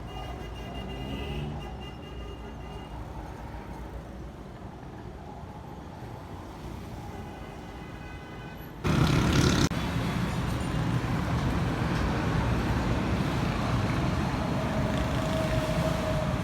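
Steady vehicle and road-traffic noise. It is fairly quiet at first, then about nine seconds in it jumps abruptly to a louder, even rush.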